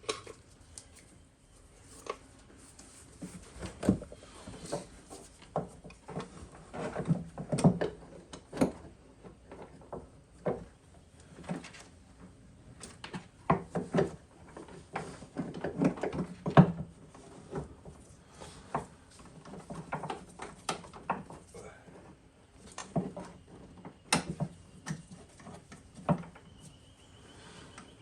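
Irregular knocks, clicks and rustling of parts and hand tools being handled and fitted, with no steady rhythm.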